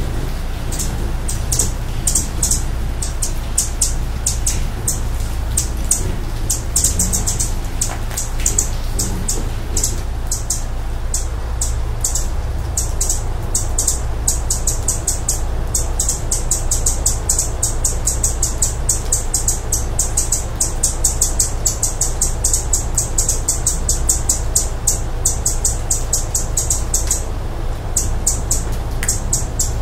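Hummingbird chirping: rapid, high-pitched chips repeated several times a second without a break, over a steady low hum.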